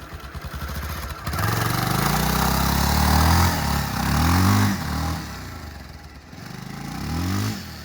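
Royal Enfield Bullet's single-cylinder engine revved up and down in three surges as the motorcycle is pushed out of soft sand. It dies away near the end.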